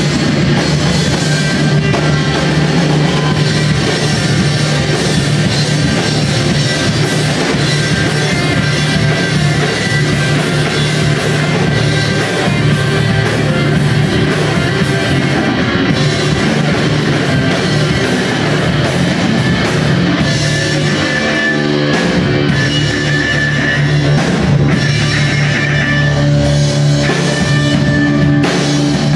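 Live rock band playing heavy instrumental rock: distorted electric guitars, electric bass and a drum kit, loud and continuous.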